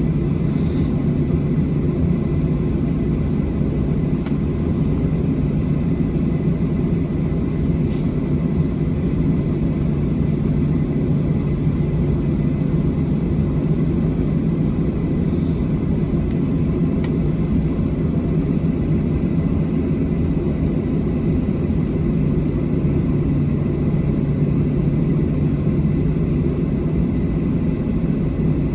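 Steady cabin roar of a Boeing 737-700 with CFM56-7B engines: a low rumble with a constant hum and airflow noise. A faint click about eight seconds in.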